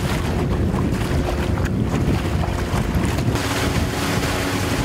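A small open boat under way: its motor running steadily, with wind buffeting the microphone and water rushing past the hull.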